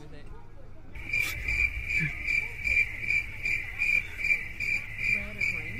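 Cricket chirping in a steady, even rhythm of about two to three high chirps a second, starting about a second in.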